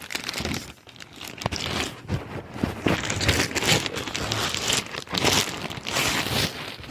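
Plastic zip-top bag crinkling and rustling as it is handled, with many small crackles throughout.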